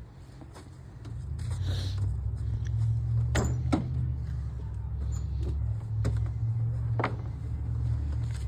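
A low steady rumble sets in about a second in, with three sharp knocks: two close together about three seconds in and one near seven seconds.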